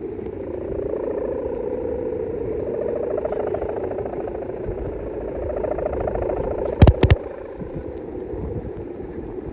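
A droning, pitched hum that slowly wavers up and down in pitch over a low rumble like wind on the microphone, with two sharp knocks close together about seven seconds in.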